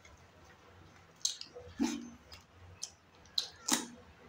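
Close-up eating sounds of a mouthful of rice and chicken curry: wet lip smacks and chewing, a run of short sharp smacks starting about a second in.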